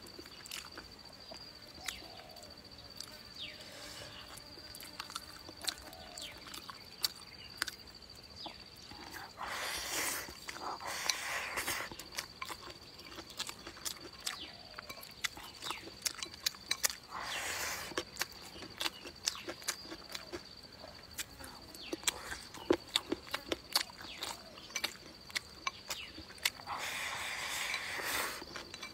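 Close-up eating sounds: bamboo chopsticks clicking against a ceramic rice bowl, with chewing and lip smacks. There are three longer scraping, slurping spells as rice is shoveled from the bowl into the mouth, the last near the end.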